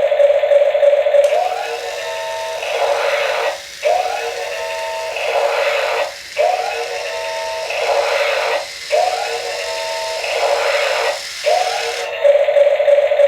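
Electronic sound effect from a toy RC forklift's small speaker: a steady tone gives way to a short looped clip of several tones, repeated five times about every two and a half seconds, before the steady tone returns near the end.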